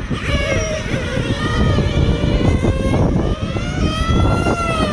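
Engine RC car's small nitro engine revving on track laps, its high whine rising and falling in pitch with the throttle. Heavy wind rumble on the microphone underneath.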